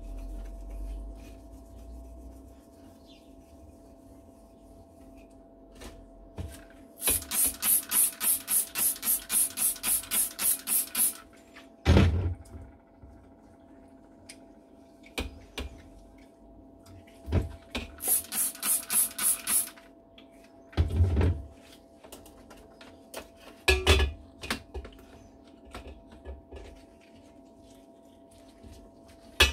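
Two spells of quick back-and-forth rubbing strokes on a metal workpiece, about three or four strokes a second, with a few single knocks of objects being set down between them, over a faint steady hum.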